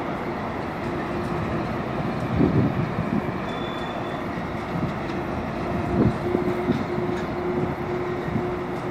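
Coal train hopper cars rolling past: a steady rumble of steel wheels on the rails with a few heavier clunks, and a faint steady tone underneath that grows stronger in the second half.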